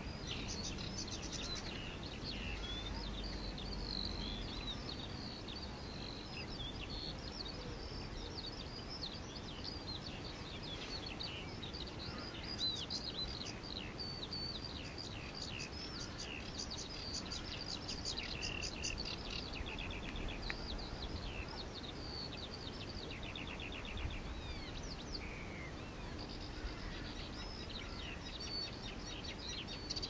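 Songbirds singing all around a wetland: a continuous jumble of high chirps, warbled phrases and quick trills, over a steady low background hiss.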